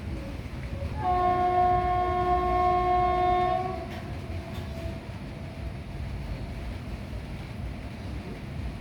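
WAP-7 electric locomotive's horn, sounded in one long steady blast of about two and a half seconds over the rumble of the fast-running train. A faint trailing tone follows after the horn stops.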